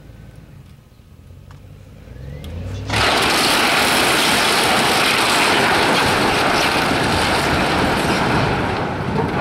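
A 100-year-old wooden barn collapsing: after a few faint cracks and a growing rumble, a loud, steady rushing crash starts suddenly about three seconds in and runs for about six seconds, easing slightly near the end.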